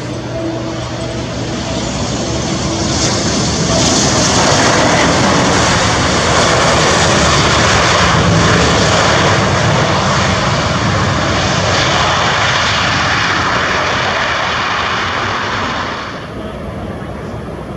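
Embraer E190 regional jet's twin turbofan engines during touchdown and landing roll: a loud, steady rushing noise that builds over the first few seconds, holds, and cuts off suddenly about sixteen seconds in.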